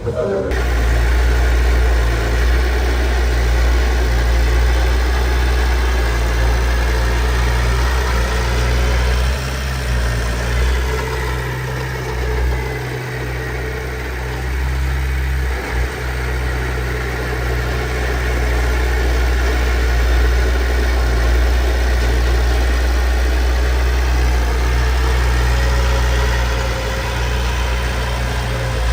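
Heavy earthmoving machine's diesel engine running steadily with a deep low hum, easing off briefly around the middle.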